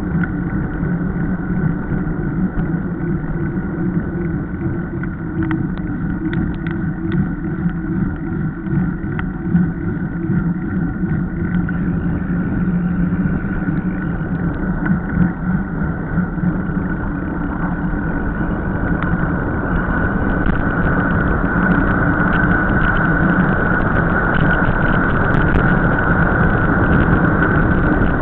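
Wind rushing over the microphone and tyre rumble from a mountain bike descending fast on a tarmac road, with scattered clicks. It grows louder over the last third.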